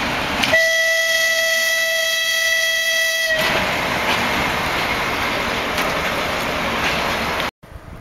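A locomotive horn sounds one steady blast of about three seconds over the rumble of a freight train of wagons rolling past. The horn stops, and the rolling rumble continues until the sound cuts off suddenly near the end.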